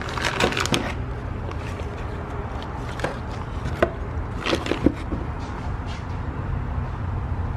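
Plastic bags crinkling while bagged forged steel H-beam connecting rods are handled in a cardboard box, with a few sharp knocks and clicks of the rods shifting against each other and the box. A steady low hum runs underneath.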